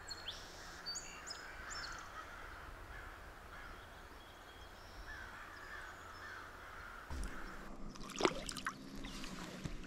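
Crows cawing repeatedly over the steady rush of a shallow river. Near the end, water sloshes as a hand-held smallmouth bass is lowered back into the current.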